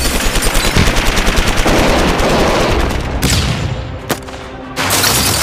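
Rapid automatic gunfire: a long string of shots in quick succession for about three seconds, then a lull broken by a single sharp report about four seconds in, and heavy firing again near the end.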